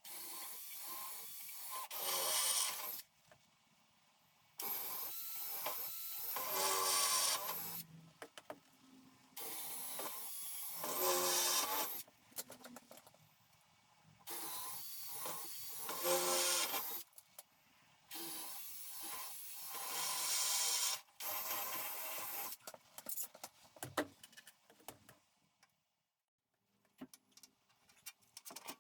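Handheld power drill running in about six bursts of two to three seconds each, getting louder and changing pitch partway through each run, with short pauses between.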